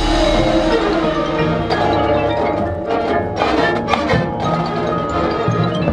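Marching band playing its field show: sustained band chords with the front ensemble's mallet percussion (marimba, glockenspiel, chimes) ringing out, and a few sharp percussion strikes.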